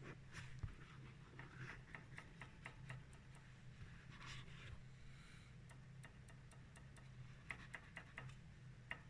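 Faint, irregular light clicking of a front disc-brake pad shifting in its caliper bracket, with a steady low hum beneath. This is the play of the outer pad between the bracket and the brake disc, the source of the front caliper knocking.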